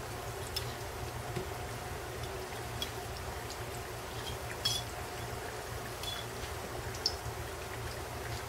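Samosas deep-frying in oil on low heat: a faint, steady bubbling with scattered small crackles and pops, over a steady low hum.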